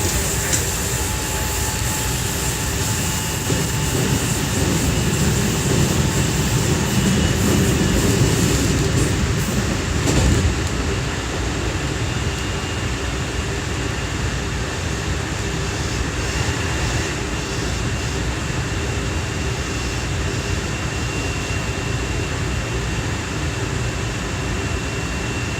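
JR West 207 series 1000-subseries electric train heard from inside the car while running: steady wheel and track rumble with thin steady inverter tones over it, and the hiss at the top end drops away about ten seconds in. This set's inverter modulation sounds are out of step with the rest of its class, giving an odd-sounding motor whine.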